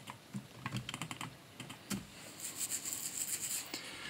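Computer keyboard keys clicking, a run of short presses of shortcut keys, followed about two seconds in by a second and a half of light, quickly pulsing scratchy rubbing.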